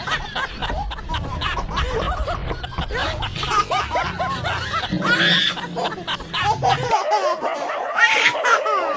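People laughing hard and continuously at a pet's antics, in short repeated chuckles and snickers. A low background rumble under the laughter stops suddenly about seven seconds in.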